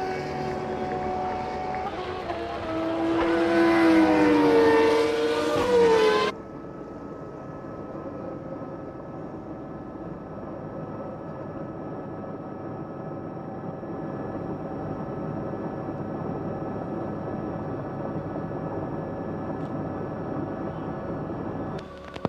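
Formula One V10 engines revving, their pitch rising and falling, for about six seconds. An abrupt cut then brings a duller, steady drone with fixed tones, which stops suddenly just before the end.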